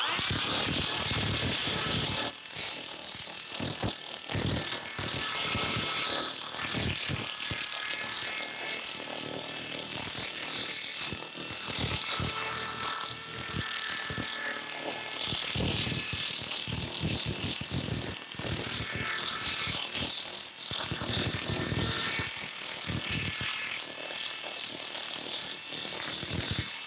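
Yellow corded DeWalt drill spinning a Sand-O-Flex sanding wheel with 80-grit abrasive strips against carved wood: the motor's whine under a fast, continuous flutter of the strips striking the wood. The loudness dips and comes back several times as the wheel is pressed on and eased off.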